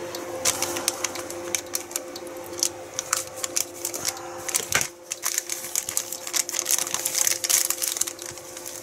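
Thin plastic packaging bag being crinkled and rustled by hand as it is opened and the parts are pulled out: a dense, irregular run of sharp crackles, with a single knock a little under five seconds in.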